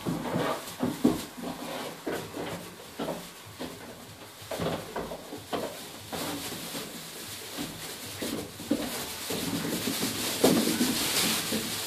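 Appenzell goat kids romping: irregular knocks and clatter of small hooves jumping against wooden pen boards, with straw rustling underfoot.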